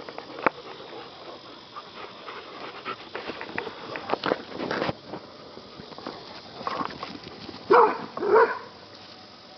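Dogs play-fighting on grass: scuffling and panting, then two loud barks about half a second apart near the end.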